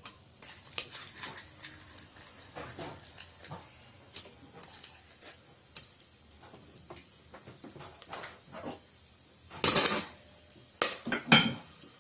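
Whole spices frying in hot oil and ghee in an aluminium pressure cooker, heard as scattered small ticks and clicks. A louder clatter of utensils and dishes comes about ten seconds in and again near the end.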